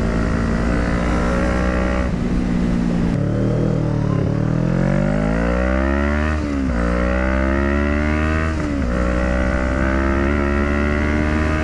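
CFMoto 400NK motorcycle engine under way: the engine note holds steady, falls away about two to three seconds in as the bike slows, then climbs in pitch under acceleration, broken twice by gear changes.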